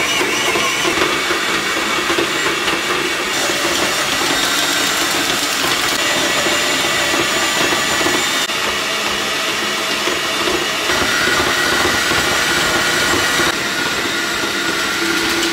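Kenwood stand mixer's motor running steadily at a low speed setting, its K-beater turning and kneading sourdough dough in the steel bowl. The dough is still taking up the water added a spoonful at a time. The tone shifts slightly a few times.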